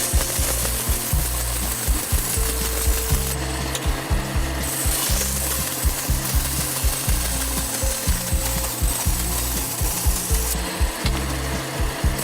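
Repeated rasping, rubbing strokes of a tool working wood, with frequent short knocks throughout.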